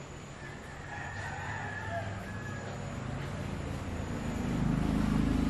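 A rooster crowing once, one drawn-out call of about two seconds. In the last second or so a low hum grows louder.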